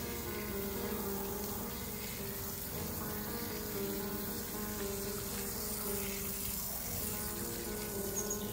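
A slow melody of held notes, with the steady hiss of water spraying from a garden hose beneath it.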